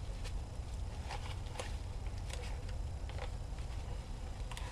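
Faint handling noise as a tarp tie-down is looped around foam-covered pipe: scattered soft rustles and light clicks, over a steady low hum.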